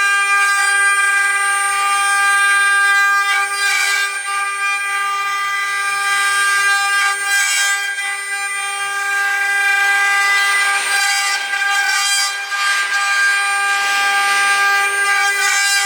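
CNC milling machine spindle running with a steady high whine, while hissy cutting noise swells and fades on top of it several times.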